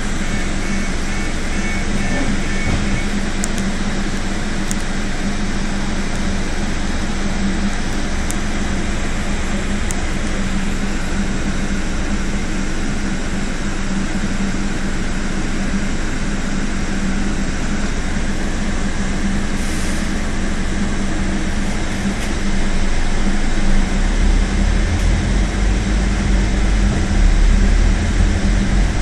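Scania OmniCity double-decker bus's diesel engine running steadily, heard from the upper deck as a constant low hum. Near the end the low rumble grows louder as the bus pulls away.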